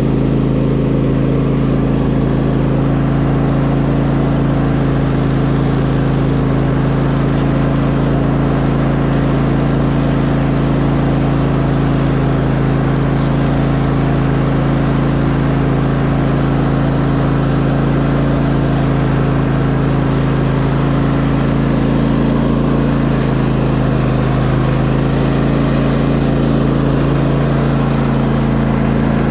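Gasoline lawn mower engine running steadily at a constant speed.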